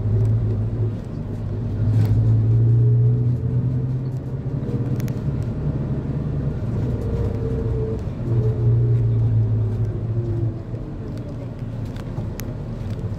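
Engine of a moving road vehicle running, heard from on board, its pitch rising and falling as it speeds up and eases off, over road noise. It is loudest twice, about two seconds in and again about eight seconds in.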